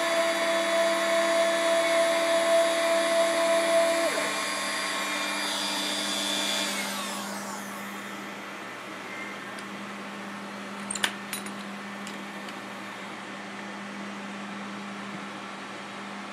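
Router spindle of a homemade CNC router cutting wood, with the stepper motors humming at a steady pitch until about four seconds in. The router then spins down, its pitch falling over a couple of seconds, leaving a steady low hum and a sharp click a few seconds later.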